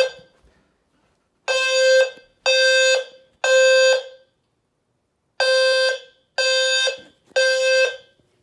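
Fire alarm horns, System Sensor L-series horn strobes with a System Sensor low-frequency sounder, sounding the temporal-3 evacuation pattern. Two rounds of three short, loud, low-pitched blasts play, with a longer pause between the rounds.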